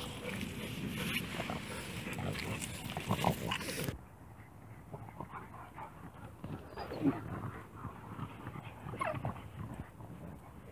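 Dogs in a pack at rough play, giving several short vocal sounds, with a noisy background that cuts off suddenly about four seconds in.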